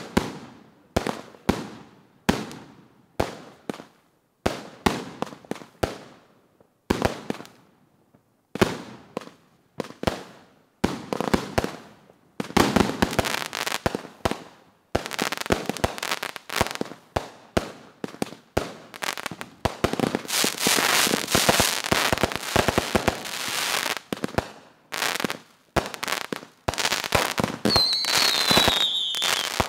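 Consumer aerial fireworks cakes firing: a string of separate sharp shots and bursts, then from about twelve seconds in a dense barrage of overlapping shots and crackling. A short falling whistle comes near the end.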